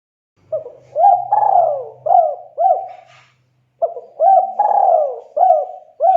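Spotted dove cooing: two phrases of several quick, falling coos, the second starting after a short pause.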